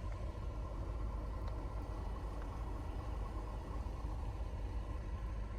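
Steady low rumble of a car's engine heard from inside the cabin, with no change in pitch.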